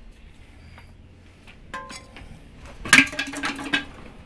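Metal tools and parts clinking. The loudest is a clank about three seconds in that rings briefly.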